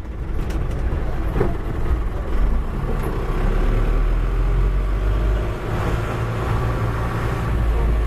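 Steady engine and road noise from riding aboard an open-sided tour vehicle in motion, with a continuous low rumble.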